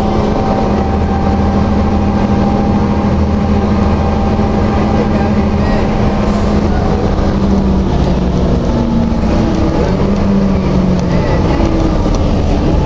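Cummins ISM diesel engine of a 2008 Gillig Advantage low-floor transit bus, heard from on board. It runs steadily at first, then its note shifts up and down in pitch through the second half.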